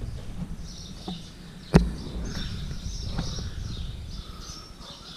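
Low outdoor rumble of wind and handling noise during a climb over rock, with one sharp knock a little before halfway through and faint high bird chirps.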